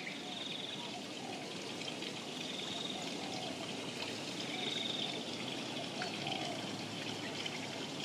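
Steady flowing water, like a trickling stream, with faint bird chirps and trills over it.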